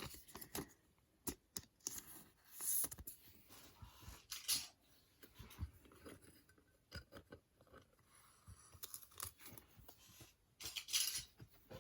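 Baseball cards being handled and slid into soft plastic penny sleeves: scattered light clicks and taps with short plastic rustles and swishes, one louder rustle near the end.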